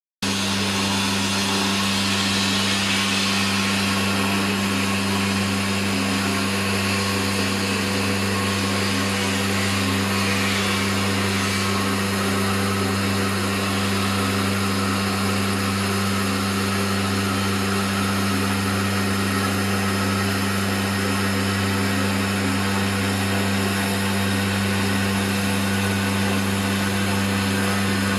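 Stone CNC router running, a steady low hum with a hiss above it and no change throughout.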